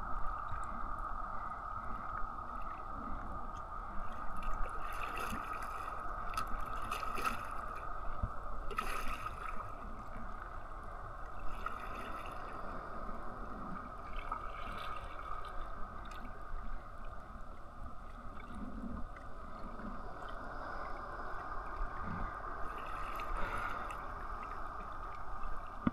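Water lapping and sloshing against a kayak's hull on open sea, with scattered splashes, under a steady hiss.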